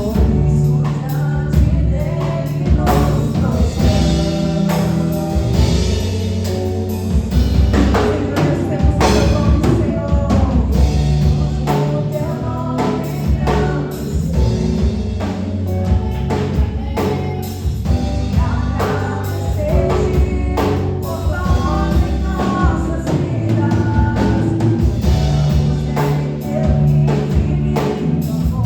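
Live gospel worship music: singing over a band with drum kit.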